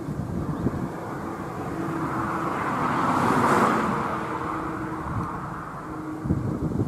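Steady rumble of a Boeing 747's four jet engines high overhead. About two seconds in, a road vehicle passing close by swells up, peaks and fades away. A few short low thumps come near the start and near the end.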